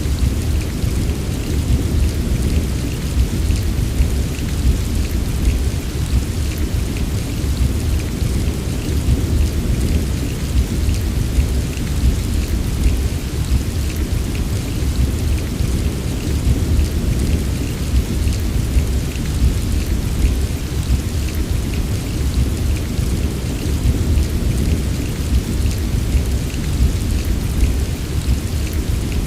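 Steady heavy rain with a constant deep low rumble under it, like distant rolling thunder, and fine pattering of drops on top; no single thunder crack stands out.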